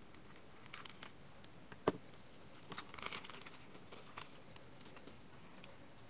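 Scissors cutting open a thin plastic packaging bag, with the plastic crinkling and rustling as it is handled: a few faint, scattered snips and rustles, the sharpest a single click about two seconds in.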